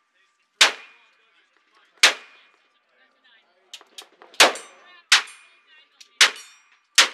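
Short-barrelled stainless revolver fired six times at uneven intervals, each shot a sharp crack that dies away quickly.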